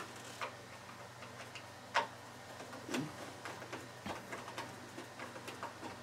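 Phillips screwdriver backing a small screw out of a treadmill handlebar cover: faint, irregular small clicks and ticks, the sharpest about two seconds in.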